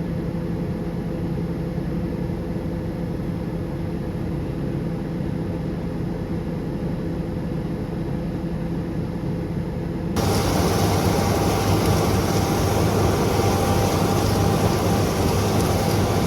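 Combine harvester running steadily, heard from inside the cab as a constant engine hum. About two-thirds of the way through, the sound switches abruptly to a louder, harsher steady machine noise.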